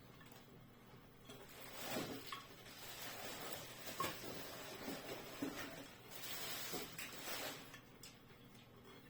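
Scraping and rustling of pump parts being handled and fitted back together, with a few light clicks.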